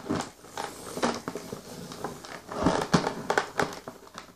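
Cardboard toy box being handled: scattered rustles and light taps as fingers press and move the packaging.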